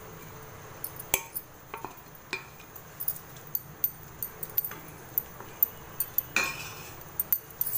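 Wooden spatula knocking and scraping against a metal kadai while paneer cubes are pushed around in a little oil: scattered sharp clicks and taps, with a short scrape about six seconds in.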